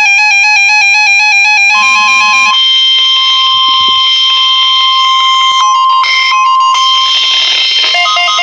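Electronic alert tones. A quick run of rapidly alternating beeps gives way, about two seconds in, to the NOAA Weather Radio 1050 Hz warning alarm tone, a single steady loud tone held for about six seconds. Near the end it changes to another pattern of alternating beeps.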